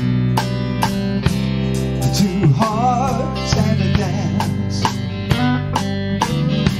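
A small band playing a song live: strummed guitar and electric bass over drums keeping a steady beat. About two and a half seconds in, a melody line with a wide vibrato comes in over it for about a second.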